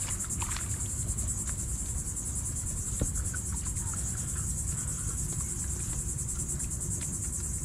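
A steady, high-pitched insect chorus with a fast, even pulse, with a low rumble underneath.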